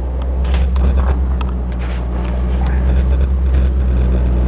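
Ford E-Series van's gas V10 engine running steadily, heard from inside the cab as a low hum with light interior rattles and clicks over it.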